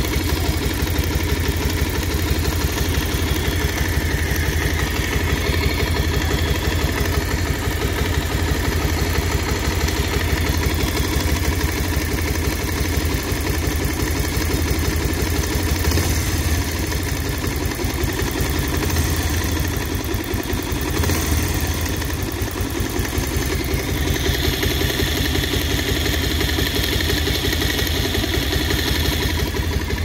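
Bajaj Pulsar 150's air-cooled single-cylinder engine running at a steady idle, with no revving; the owner presents its sound as an engine problem.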